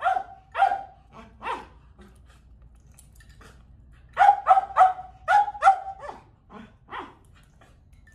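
Shetland sheepdog barking in short, sharp, high-pitched barks: a few at the start, then a quick run of about six around four seconds in, trailing off with fainter barks.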